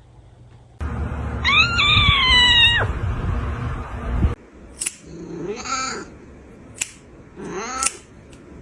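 Cats meowing: one long meow that falls slowly about two seconds in, then two shorter meows later, with a few sharp clicks between.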